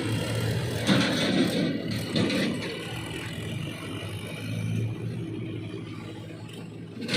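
Heavy diesel engine of a backhoe loader or tractor running steadily, with louder clattering bursts about a second in and again around two seconds in.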